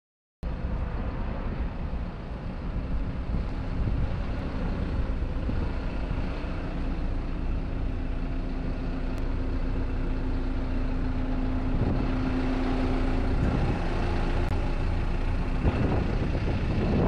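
Caterpillar 319D L excavator's diesel engine running steadily at idle, with a steady hum through much of it.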